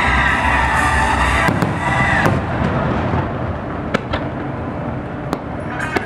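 Fireworks going off: a dense crackling shower that thins out after about two seconds, with a handful of sharp single bangs scattered through the rest.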